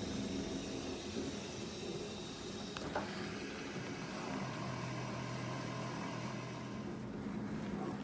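Fisher & Paykel DishDrawer dishwasher running its pre-wash rinse, a steady hum of its pump with water moving inside. There is a single click about three seconds in, and a deeper steady hum joins about four seconds in.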